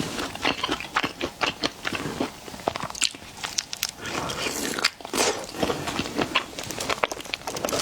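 Close-miked eating of seafood, likely shrimp: biting and chewing with a dense run of quick crunchy clicks and crackles.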